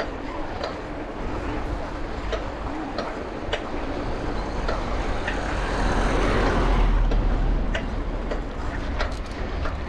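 Bicycle riding heard from the rider: a steady low rumble of wind and rolling tyres, with scattered short rattles from the bike. The rush swells louder about six to seven seconds in, then settles back.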